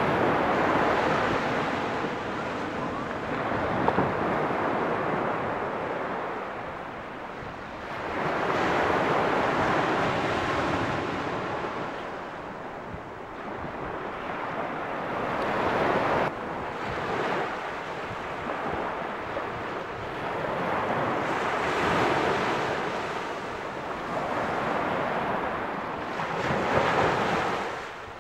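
Small waves breaking and washing up a sandy beach, the surf swelling and fading every several seconds, with wind on the microphone.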